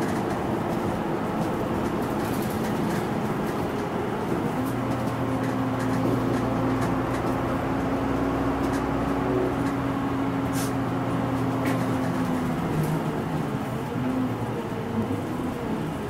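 Cabin ride sound of a Mitsubishi Aerostar one-step city bus under way: engine and road noise, with a steady engine drone from about four seconds in that fades out at about twelve seconds, and a couple of sharp rattling clicks near the middle.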